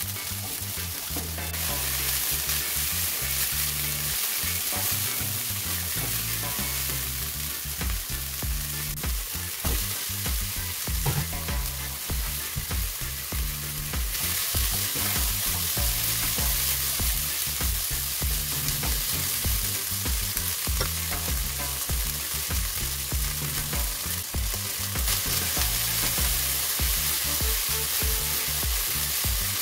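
Julienned pork, ginger and green onion sizzling in hot oil in a nonstick wok while a spatula stirs and tosses them. The sizzle gets louder about halfway through.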